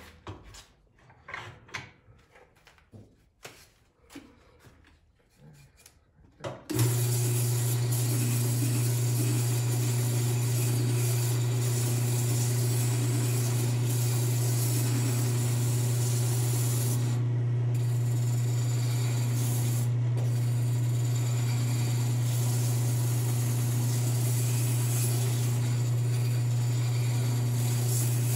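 A few light knocks and clicks of the lathe's tool rest being handled, then about seven seconds in the wood lathe starts abruptly and runs steadily with a loud low hum, while a flat sanding block held against the spinning wooden cylinder adds a steady rubbing hiss.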